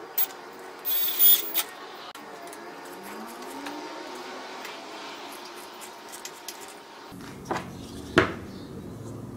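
Metal clicking and scraping of hand tools on a bandsaw's bearing blade guide as it is adjusted, loudest in a short clatter about a second in, over a steady low hum. Near the end come two sharp clicks of the metal guide assembly being handled.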